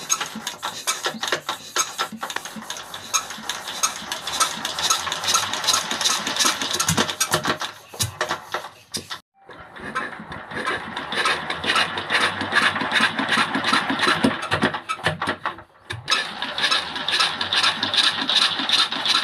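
Old diesel water-pump engine being hand-cranked, turning over with a fast, dense clatter but not catching: an old engine that refuses to start. The clatter breaks off briefly about nine seconds in and again about sixteen seconds in.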